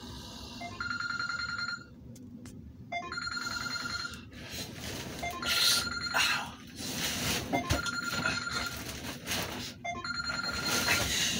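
Mobile phone ringing with a repeating electronic ringtone, each ring lasting about a second and coming back every two seconds or so, with rustling in between.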